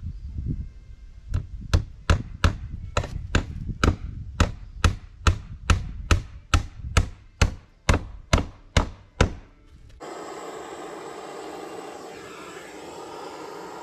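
A hammer striking wood in a steady rhythm, about twenty blows at roughly two and a half a second, then stopping. Near the end the sound cuts to a steady rushing noise.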